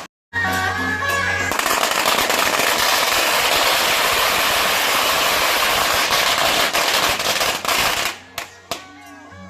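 A string of firecrackers going off in a rapid, continuous crackle for about six seconds, ending in a few last separate pops.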